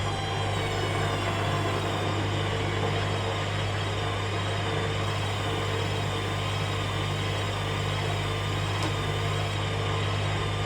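Hoover Dynamic Next washing machine spinning its drum: the motor gives a steady whine with a low hum beneath, its pitch wavering slightly.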